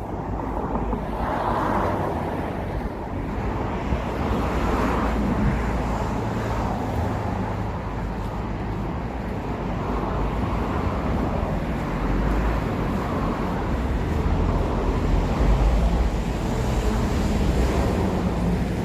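City street traffic: a steady rumble of passing cars and other vehicles, swelling and easing as they go by.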